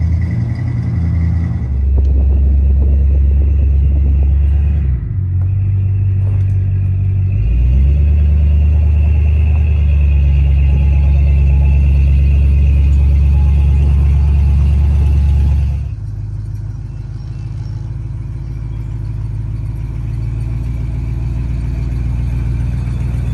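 1983 Chevy C20 pickup carrying a truck camper, its engine running as it drives: a loud low rumble that dips and shifts pitch a few seconds in, then drops to a quieter rumble about two-thirds of the way through.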